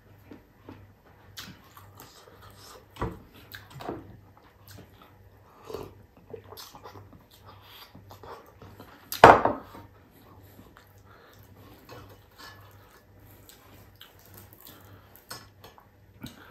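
Close-up eating sounds: chewing and lip smacking on crispy fried fish and rice eaten by hand. About nine seconds in comes one loud slurp of broth from a bowl.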